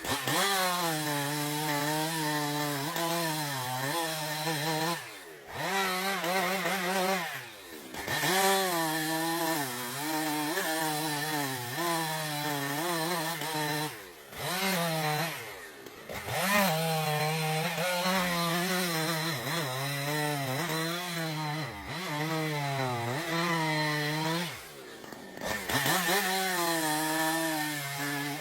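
Two-stroke chainsaw running hard while cutting wood, its pitch dipping and recovering as it takes the cut. The sound breaks off briefly a few times.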